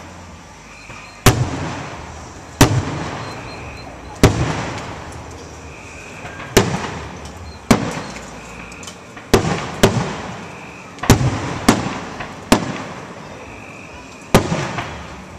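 Aerial firework shells bursting overhead: eleven sharp booms at uneven intervals, some in quick pairs, each trailing off in a rolling echo.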